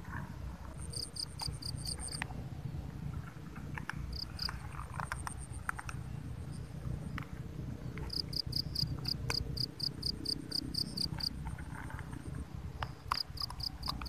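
An insect chirping in on-and-off trains of quick high pulses, about five a second, with kittens crunching dry kibble from a bowl in scattered clicks. A steady low rumble lies underneath.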